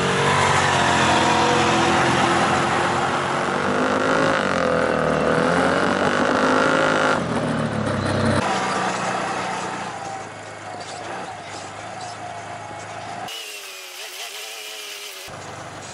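Off-road side-by-side engines running on a dirt trail, the pitch rising and falling as the machines speed up and ease off. After about ten seconds the sound drops to a quieter engine hum, with a few abrupt changes in sound.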